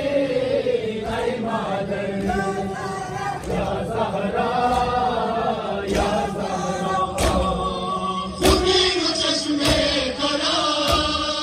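A crowd of men chanting a noha, a Shia mourning lament, in chorus. From about halfway through, unison chest-beating (matam) slaps come in, about one every second.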